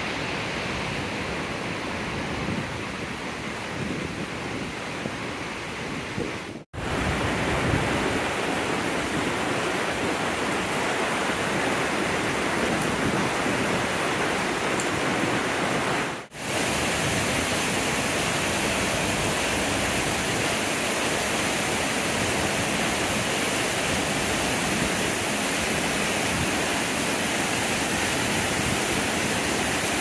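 Steady rush of a mountain waterfall and stream, a full even hiss. It drops out briefly twice, about seven and sixteen seconds in, and is louder after the first dropout.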